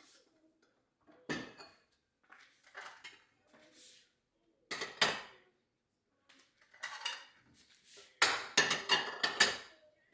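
Kitchenware clattering as breakfast is prepared: dishes and utensils clink and knock a few times, separately at first, then in a quick run of clatter near the end.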